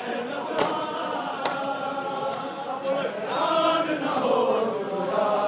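A crowd of male mourners chanting a Muharram lament together, with a couple of sharp slaps in the first second and a half keeping the beat.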